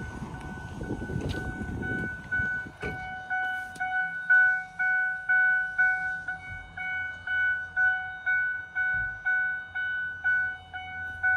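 Dash warning chime of a 2008 Ford F-550 Super Duty, dinging evenly about twice a second with the driver's door standing open. Before it comes through clearly, about two seconds of rustling and a knock are heard as someone moves into the cab.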